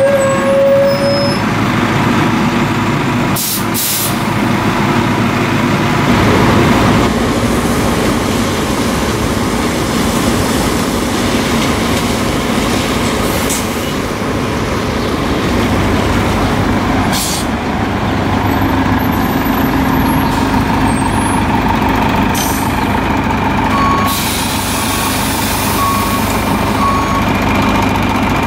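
Orion transit bus engines running as a bus pulls away across wet pavement, with several short bursts of air hiss from the air brakes and a few short beeps near the end.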